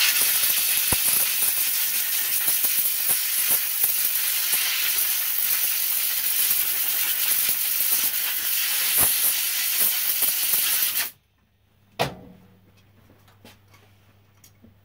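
Compressed-air blow gun on a workshop airline hissing steadily for about eleven seconds as it blows moisture out of a spotlight lens, then cutting off suddenly. A single sharp knock follows about a second later.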